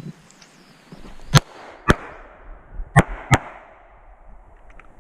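Shot timer's start beep, then four gunshots in two quick pairs: double-taps fired at paper targets on a practical-shooting stage.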